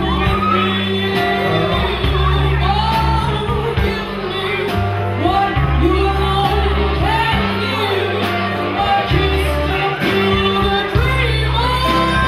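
A woman singing live into a microphone with a band, her voice over bass and drums.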